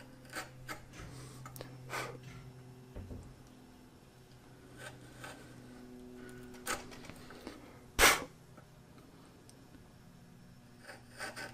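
Narrow chisel paring end grain at the base of dovetail tails, worked with small wiggling strokes: faint scraping with scattered small clicks of the steel against the wood, the sharpest about eight seconds in. A faint steady low hum runs underneath.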